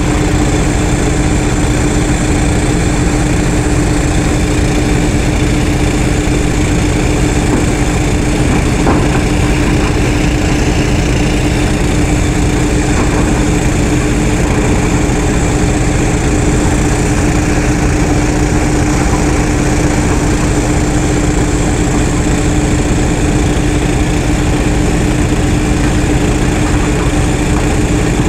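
Diesel engine of a LiuGong 924E crawler excavator running steadily at constant speed, a continuous even drone with a strong humming tone that does not rise or fall.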